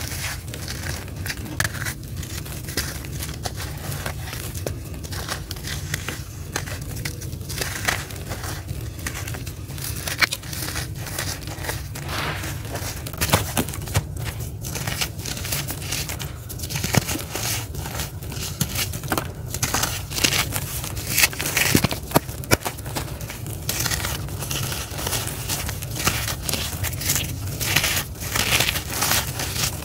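Dry, gritty charcoal lumps and powder being crushed and crumbled by hand, giving a continuous irregular crunching and crackling with grains trickling down. The crunching comes in denser spells, over a steady low hum.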